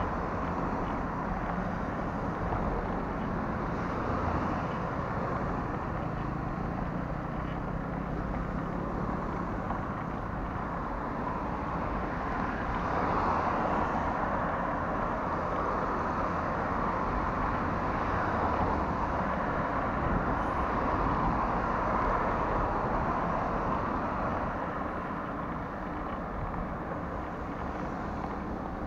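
Road traffic on a multi-lane city boulevard: cars driving past in a steady wash of engine and tyre noise over a low rumble. It grows louder about halfway through and eases near the end.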